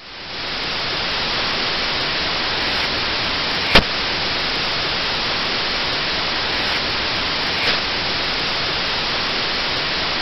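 Television static: a steady hiss of white noise from a TV showing snow, fading up over the first half second and then holding level. One sharp click cuts through it a little under four seconds in.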